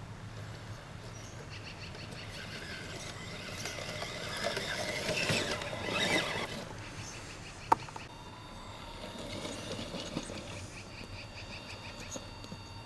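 Tamiya CR-01 scale RC crawler's electric motor and gears whining as it crawls over dirt and roots. The sound grows louder for a couple of seconds around the middle, and there is one sharp click about two-thirds of the way through.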